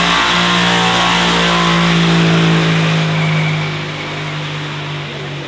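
Aston Martin V12 Vantage's twin-turbo 5.2-litre V12 held at steady high revs during a burnout, the rear tyres spinning in clouds of smoke. The note fades somewhat after about three and a half seconds.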